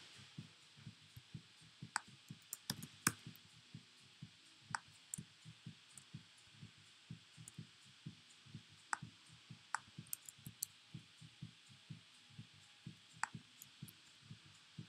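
Soft low taps, about three or four a second, with sharper clicks now and then: a mouse or trackpad and keyboard being worked at a computer.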